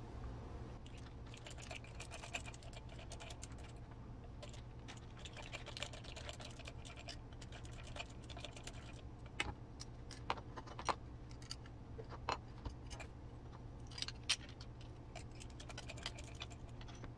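Faint scattered clicks and light scrapes of a small hex driver working screws out of and back into a scale RC truck's front bumper, with small parts handled against it, over a steady low hum. A few sharper clicks come past the middle.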